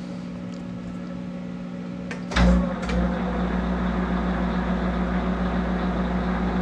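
Monarch 10EE lathe's drive humming steadily. A little over two seconds in, a sharp click as the spindle is switched on, then the spindle runs with a deeper, steady hum.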